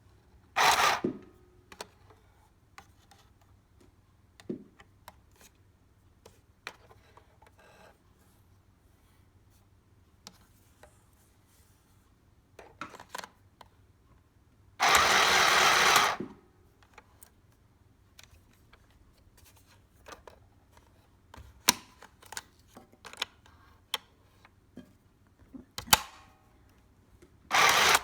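A mini straight-stitch sewing machine, run by its foot pedal, stitching in short bursts: a brief run about a second in, a louder run of about a second and a half in the middle, and another just at the end. Between the runs there are small scattered clicks of the cloth and lever being handled.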